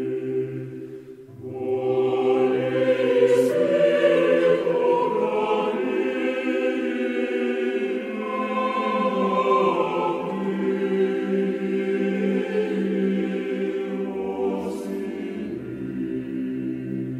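Choir singing a slow, mournful piece in long held chords, with a short break about a second in before the next phrase.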